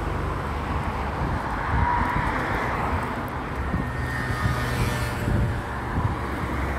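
Steady road-traffic noise: a continuous low rumble of passing cars.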